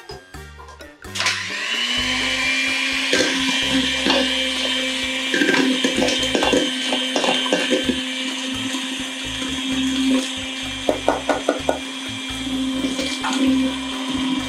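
Hanabishi electric hand mixer running steadily with a whine, its beaters whipping egg whites into meringue in a stainless steel bowl as brown sugar is added gradually. The motor starts about a second in. Scattered clicks sit over it, with a quick run of them about eleven seconds in.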